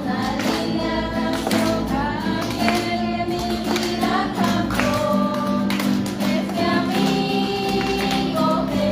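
Music: voices singing a song over a steady instrumental accompaniment.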